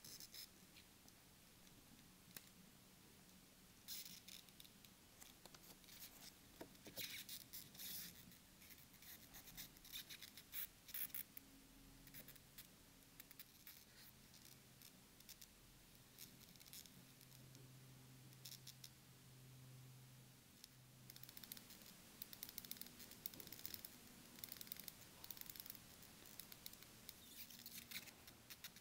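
Faint rustling and small scratchy clicks of fingers handling a Seiko 5 Sports wristwatch and its leather strap. They come in two spells, one from about four seconds in and another near the end.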